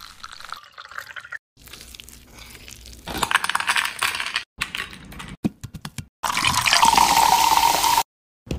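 A run of edited kitchen sounds: juice trickling into a mould, then ice cubes tipped into a glass bowl, clattering, and a few separate knocks. From about six seconds in, a fizzy drink pours from a can into the bowl, hissing loudly for about two seconds.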